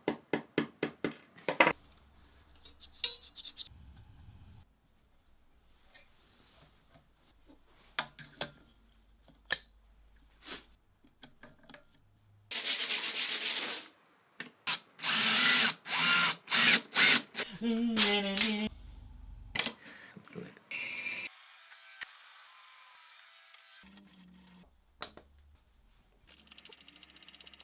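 Workshop handwork: scattered clicks and taps, then about halfway through a string of short, loud bursts from a small power tool, some with a whining motor pitch.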